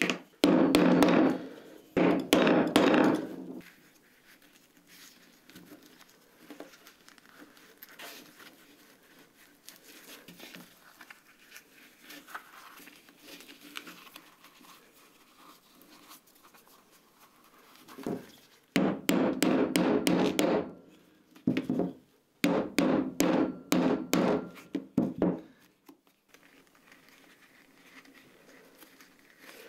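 Quick runs of hammer taps on a steel leather punch and rivet setter, working through leather on a cutting mat. There are three short bursts at the start, a long quieter stretch of faint handling and scratching, then several more bursts of a second or two about two-thirds of the way through.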